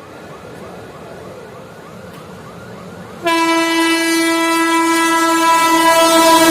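Indian Railways locomotive horn sounding one long, loud, steady blast that starts suddenly about three seconds in. Before it, a faint chirp repeats about three times a second.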